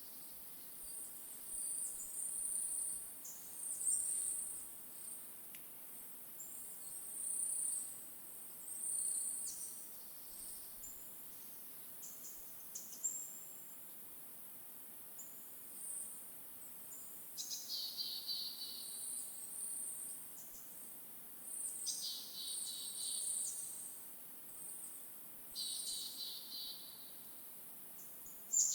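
Small forest birds singing: scattered very high, thin chirps and several quick trilled phrases, over a steady high hiss of insects.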